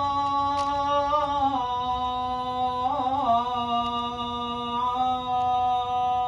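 A man's unaccompanied voice calling the adhan (Islamic call to prayer), drawing out 'ashhadu an la ilaha illa Allah' in one long held note. It has an ornamental turn near the start and another about three seconds in, and the pitch steps down a little after each.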